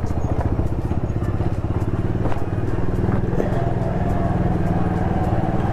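Vehicle engine running steadily under way, its revs stepping up slightly about three and a half seconds in.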